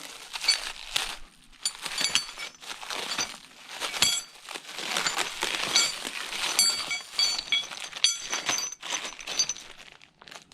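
Metal tools and parts being handled: repeated clinks, knocks and rattles, several ringing briefly, dying away near the end.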